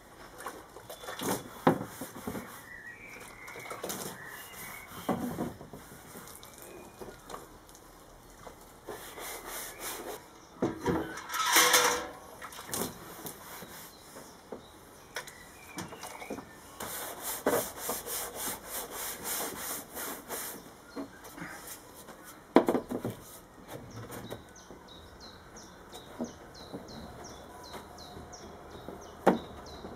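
A wide bristle brush sweeping over a plywood sheet in runs of quick strokes, mixed with knocks and scrapes from plywood and sticks being handled. Birds chirp now and then.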